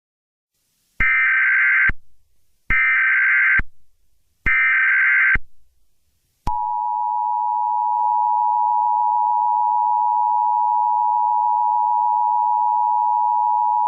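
Emergency Alert System broadcast tones: three short bursts of SAME header data, each about a second long and a little under a second apart. About six and a half seconds in, the steady two-tone EAS attention signal begins and holds.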